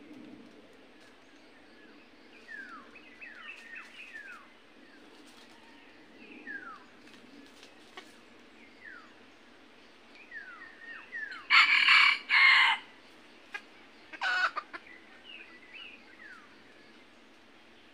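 Red junglefowl rooster crowing loudly in two parts about two-thirds of the way in, then a shorter call a couple of seconds later. Before that, thin falling chirps from other birds.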